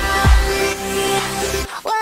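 Background electronic music: the kick-drum beat stops early on, a synth sweep rises and falls in pitch, and the music cuts out briefly near the end before a falling synth line comes in.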